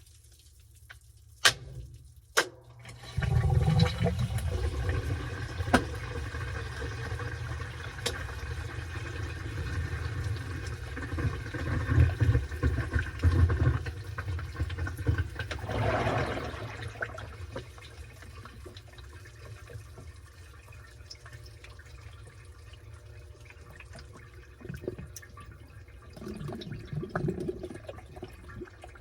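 Washing machine washing a load of towels: two clicks, then about three seconds in a low rumble with water sloshing and churning starts, swells, and eases off in the second half.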